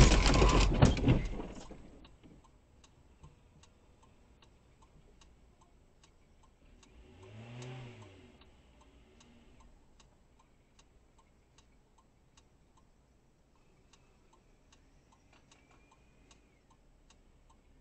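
A sudden loud crunching car collision, as another car strikes the parked dashcam car, dying away over about two seconds. After it comes a steady faint ticking, two or three a second, and a brief low tone that rises and falls about halfway through.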